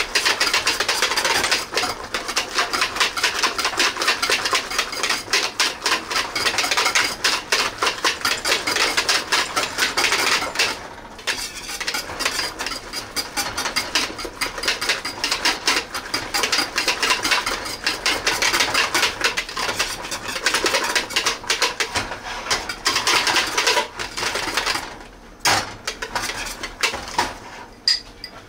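Metal hand whisk beating mashed potatoes in a pot, fast clattering strokes against the pot, pausing briefly twice.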